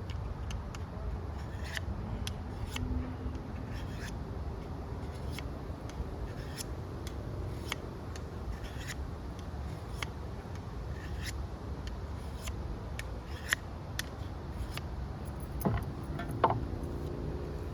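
Fixed-blade knife being sharpened by hand on a stone: short scraping strokes of steel on stone, about one or two a second, with a couple of louder knocks near the end.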